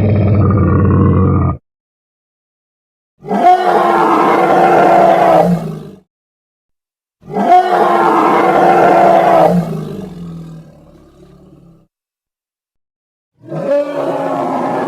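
Ankylosaurus roar sound effects: a string of long, deep, growling roars cut apart by dead silence. One roar ends about a second and a half in, new roars start at about 3 and 7 seconds, and the last begins near the end, still going.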